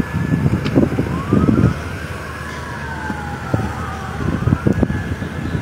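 Several emergency-vehicle sirens wailing at once, their pitches rising and falling out of step with each other, over a low, gusty rumble.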